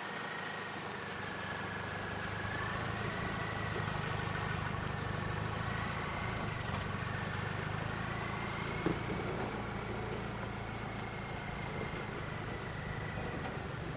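Land Rover Defender engine running at low revs as the truck crawls up a rocky track, with a steady high whine that drifts slowly up and down in pitch. There is one sharp knock about nine seconds in.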